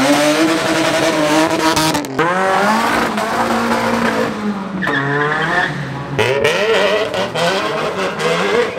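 Modified car engines revving hard, their pitch climbing steeply, holding and dropping again, in several short clips spliced together that change abruptly about two, five and six seconds in.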